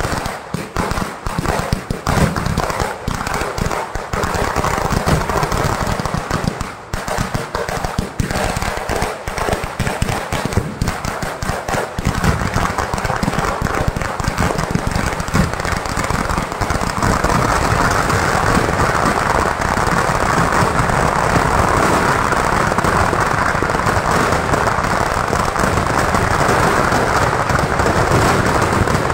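A fireworks display going off in rapid barrages of loud bangs and crackles. For the first dozen seconds the blasts come fast but separate, and from about two-thirds of the way in they merge into one continuous, louder crackling din.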